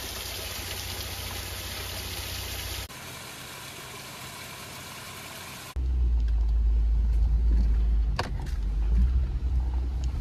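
Steady hissing noise, cut after about three seconds to a quieter hiss, then about six seconds in a cut to a Jeep Gladiator driving on a rough dirt and gravel road: a loud low rumble with scattered knocks from bumps, one sharp knock near the end.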